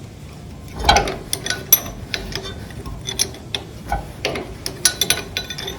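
Metal hand tools working on a tractor engine: irregular sharp clicks and short metallic clinks as wrenches turn and touch engine fittings.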